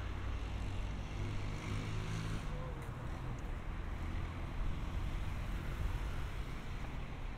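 City street ambience: a steady hum of road traffic, with one vehicle's engine note swelling briefly about two seconds in.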